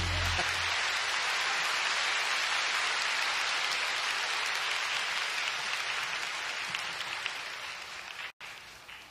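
Audience applauding, a dense even clatter of clapping that slowly dies away, with a brief dropout near the end.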